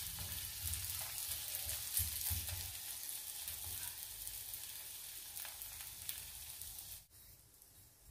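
Ghee sizzling under an aloo chapathi on a hot iron dosa griddle. The sizzle cuts off abruptly about seven seconds in.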